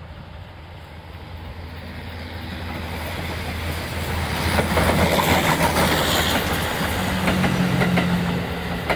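JNR D51 steam locomotive hauling a passenger train, growing steadily louder as it approaches and loudest from about five seconds in as it passes close by. Near the end come the first sharp clacks of the coach wheels over the rail joints.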